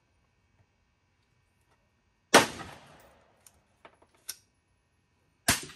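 Two shots from a Ruger SFAR semi-automatic rifle, about three seconds apart, each fading out over about half a second. A few faint clicks come between them.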